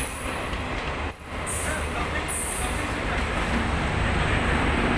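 DEMU (diesel-electric multiple unit) train rolling past slowly, a steady rumble of wheels on rail with a high squeal that comes and goes. The sound dips briefly about a second in.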